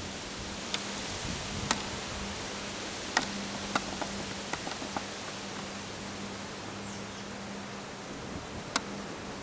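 Steady hiss of wind in a windstorm, with a faint low hum underneath and a handful of sharp ticks or taps, the loudest a little under two seconds in, just past three seconds in, and near the end.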